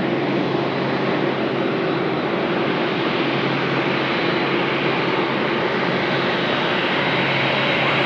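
Jet airliner on approach to land, its engines making a steady rushing noise with a thin high whine, growing slightly louder toward the end.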